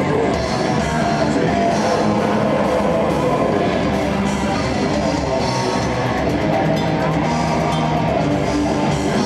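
Metal band playing live: distorted electric guitar and a drum kit in a dense, steady wall of loud amplified sound.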